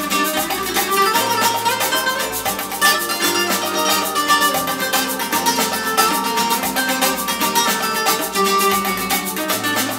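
Music with a quick steady beat played through a pair of Aurelia Magneta II stand-mounted loudspeakers. It is heard in the room through a camera's built-in microphone.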